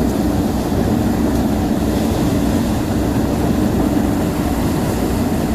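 Heavy engine of a paddy harvesting machine running steadily: a loud, even low drone.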